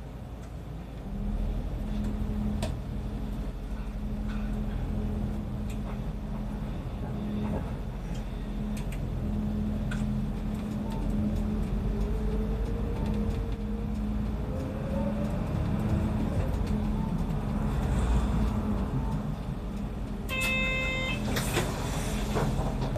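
Route bus engine heard from inside the bus, its drone picking up about a second in as the bus pulls away, with a whine rising in pitch as it gathers speed in the middle. Near the end a short pitched electronic tone sounds twice.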